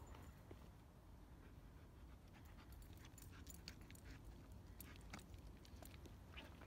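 Faint panting of a German Shepherd dog, over a low rumble, with scattered soft crackles.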